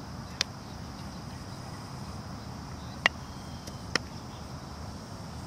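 Three sharp, single cracks of baseballs in a fielding drill, from balls hit off a bat and caught in leather gloves. One comes about half a second in, and two come close together around three and four seconds.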